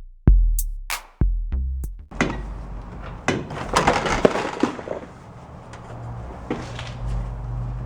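A hip-hop beat with heavy bass drum hits plays for about two seconds and stops. Then comes scraping and clicking as a plastic trim piece on the interior door panel of a 1987 Oldsmobile Cutlass Supreme is pried loose from its clips with a pry tool.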